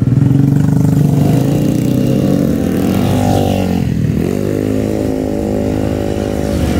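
Small scooter engines running and pulling away at low speed; the engine pitch rises about two seconds in, drops just before four seconds, then rises again and holds steady.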